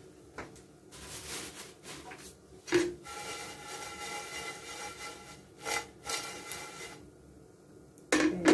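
Dried anchovies sliding and rattling as a frying pan is tossed and shaken on the stove, with a spatula scraping the pan. A sharp knock about three seconds in, and another near the end.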